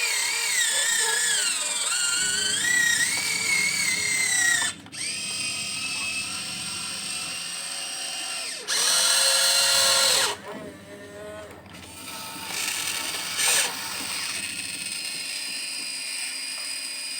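Huina 1592 RC excavator's electric motors whining, the pitch gliding up and down as they speed up and slow down. The whine drops out briefly about five seconds in, is loudest for about a second and a half around nine seconds, then turns quieter.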